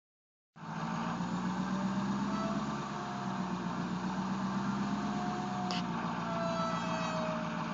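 2011 Ford 6.7L Power Stroke turbodiesel V8 idling, with a thin whine that wavers slightly in pitch over the engine's steady hum. The owner takes the whine to come from somewhere underneath the truck.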